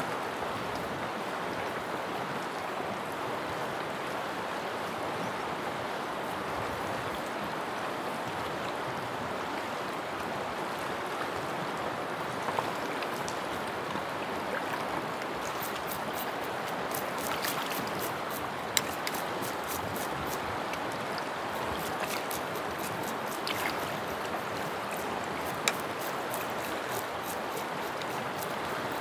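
Mountain river rushing steadily, an even unbroken water noise, with a few sharp clicks now and then.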